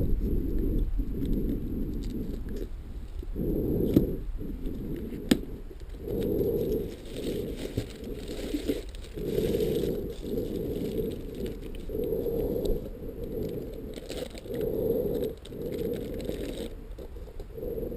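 Irregular rustling and crackling of an item and its packaging being handled and unwrapped, with muffled bumps of handling noise close to the microphone coming and going every second or two.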